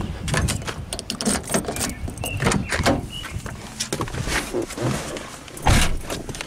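A car door being opened and someone getting into the seat, with a run of handling clicks and knocks, then a single heavy thump a little before the end as the door shuts.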